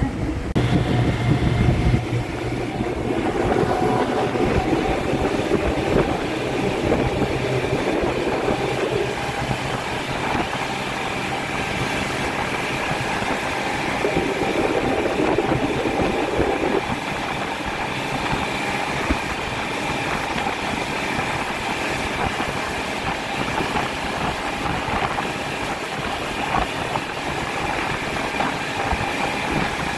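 Tour boat's engine running under way, a steady drone with a high whine, mixed with water rushing past the hull. Slightly louder in the first couple of seconds.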